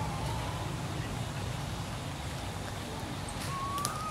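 Steady low rumble of road traffic. A short rising whistle-like call comes near the end.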